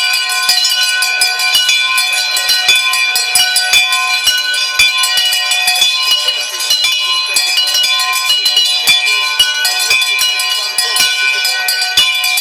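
Many bells rung together as fast as they can go: a continuous dense clanging of overlapping ringing tones and rapid strikes, with no letup.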